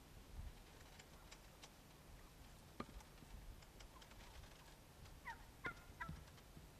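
Faint turkeys calling: a quick run of short gobbling notes near the end, with a few scattered faint knocks in the otherwise near-silent background.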